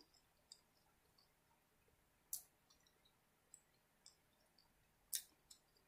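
Near silence, broken by a few faint clicks and two short soft hissy noises, about two seconds in and about five seconds in: quiet mouth sounds of chewing the last bite of a burger.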